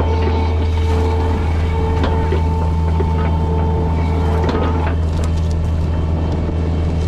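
Excavator engine running steadily under load while a boom-mounted hydraulic brush-cutter head chews through dry brush, with scattered cracks of cut stems and debris. A high steady whine over the engine drops out about five seconds in.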